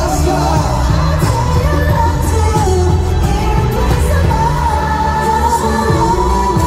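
Live K-pop concert sound heard from the audience: a male vocalist singing into a microphone over a pop backing track with strong bass. About two-thirds of the way in he holds one long note.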